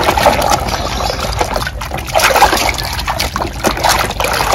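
Muddy, foamy water splashing and sloshing in a basin as a hand scrubs a toy excavator under the surface, in quick irregular splashes.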